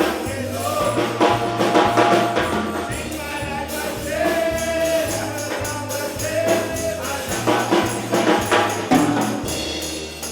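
Gospel praise music: voices singing a chorus over bass notes, with a tambourine shaken steadily in rhythm.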